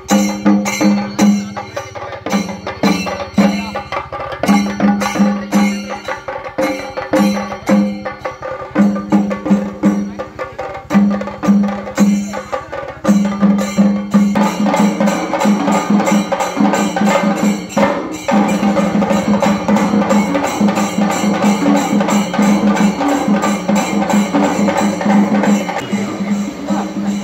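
Percussion music: drums struck in short quick groups, then settling into a continuous fast, steady beat about halfway through.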